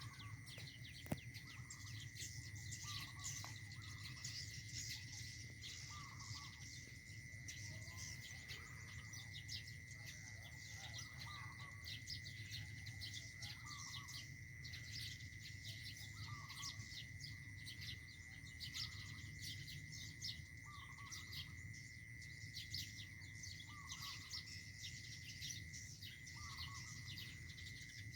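Birds chirping rapidly and continuously, with a short call repeating about every two seconds, over a steady high-pitched tone.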